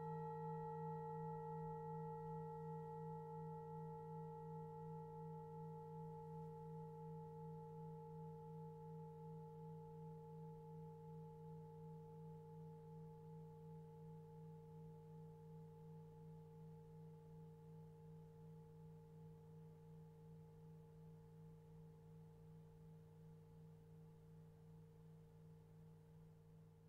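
A struck resonant metal instrument rings out after a single stroke: a low hum with several higher overtones, slowly fading with a gentle, even wavering.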